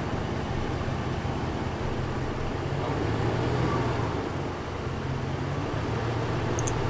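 Dodge Ram pickup truck's engine idling steadily.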